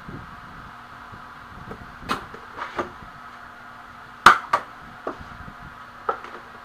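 Handling knocks as a kydex sheet and a tape-wrapped pistol are moved and set down on a wooden workbench: about six sharp clacks, the loudest a little past the middle, over a steady hum.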